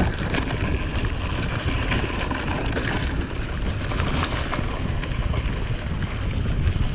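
Mountain bike riding over rough trail: steady wind rush and buffeting on the camera microphone, with tyres rolling over the ground and scattered small rattles and clicks from the bike.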